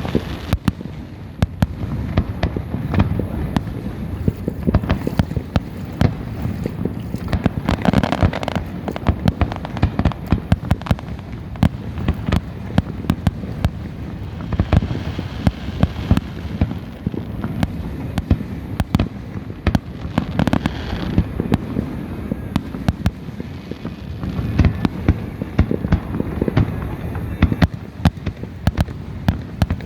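Fireworks going off continuously: a dense, irregular run of sharp pops and bangs, with a few louder swells of crackle.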